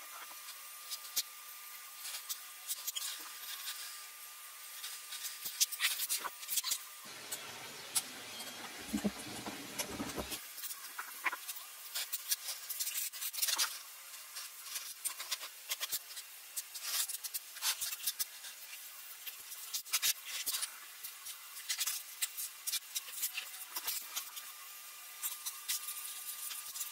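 Scattered small clicks, taps and rubbing of hands and metal parts as components are fitted onto a Bosch P7100 inline diesel injection pump on a steel workbench. A louder stretch of rustling and rubbing comes about seven to ten seconds in.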